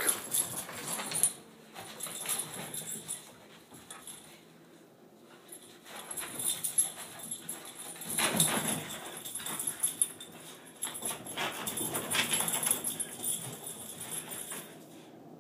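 A Shih-tzu and a Brussels griffon play-fighting, making dog play noises in irregular bursts, loudest about eight seconds in and again around twelve seconds.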